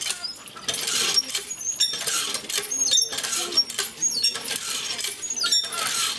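Cast-iron hand water pump being worked: repeated metallic squeaks from the handle with each stroke, and water gushing from the spout into a plastic bucket in a steady rhythm of strokes.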